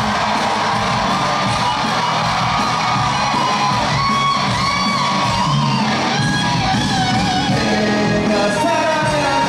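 Live pop concert music with a singer, mixed with the crowd shouting and whooping.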